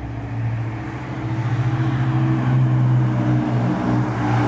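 Car approaching along a dual carriageway and passing close by, its tyre and engine noise growing louder over the first three seconds and staying loud as it goes past near the end, over a steady low drone.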